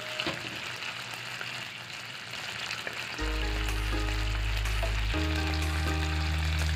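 Tomato sauce with smoked fish and potatoes sizzling as it simmers in a wok, stirred with a wooden spatula. About three seconds in, background music with long held low notes comes in over the sizzle.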